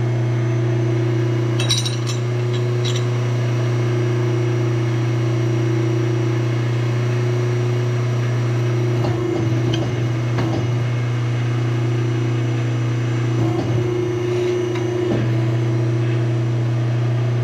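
A machine running with a steady low hum, with a few knocks and rattles about halfway through and again a few seconds later.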